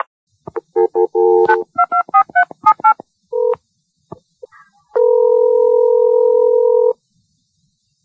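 Telephone touch-tone keypad beeps as a number is dialled, a quick run of short beeps in the first three seconds. About five seconds in, a steady ringing tone sounds once for about two seconds while the call connects.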